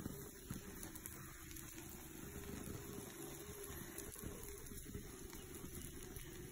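Faint, steady sizzling with small crackles from an egg omelette cooking on a hot griddle.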